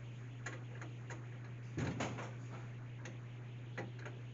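Scattered light clicks and taps of a nut driver and sensor bracket against the vending machine's sheet-metal delivery bin as the product sensor is fastened. There is a louder knock and rattle about two seconds in, over a steady low hum.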